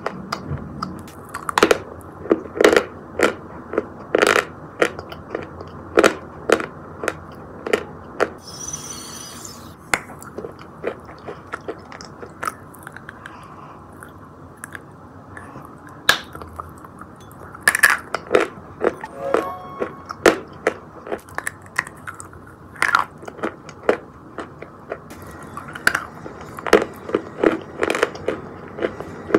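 Pieces of edible chalk being bitten and chewed: a run of sharp, dry crunches at irregular intervals, with a few quieter stretches between bites.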